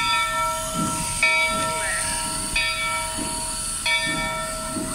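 Steam locomotive Rio Grande Southern No. 41, a C-19 class engine, ringing its bell about every 1.3 seconds as it pulls slowly along, over a steady hiss of steam.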